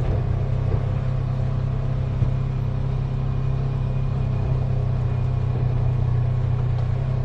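Side-by-side UTV engine running steadily with a low drone as the buggy climbs a rough dirt trail, with a small knock about two seconds in.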